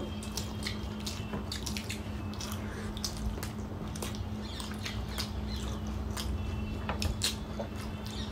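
Close-up eating sounds of steamed pork momos being chewed: irregular wet mouth clicks and smacks, several a second, over a faint steady hum.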